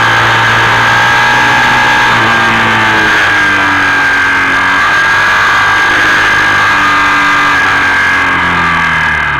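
Motorcycle engine running at a steady road speed on a winding road, with rushing wind noise, its note easing down slightly a few times.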